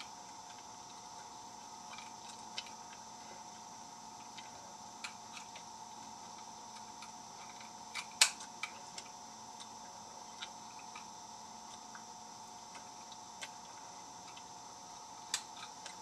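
Lock picking: small, scattered metallic clicks and scrapes of a pick working the pins inside a lock, with one sharper, louder click about halfway through, over a faint steady hum.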